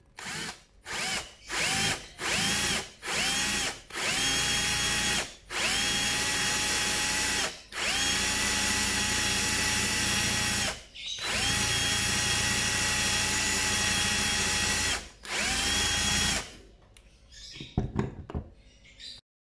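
Electric drill with a twist bit drilling out the rivet post on a Hot Wheels Deora II diecast car's base. The motor spins up in about five short trigger pulses, its whine rising each time, then runs in longer steady stretches with brief pauses between. A few light clicks and rattles follow near the end.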